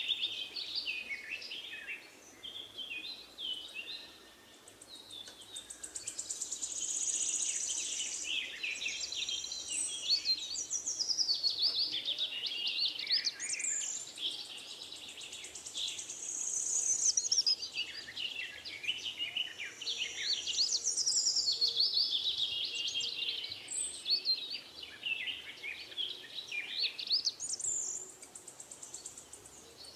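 Birds chirping and singing together, a busy chorus of quick high chirps and trills that swells and eases in waves.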